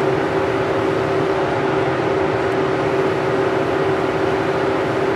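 A steady mechanical hum of the kind a fan or air-conditioning unit makes, with one constant droning tone and an even rush of noise at an unchanging level.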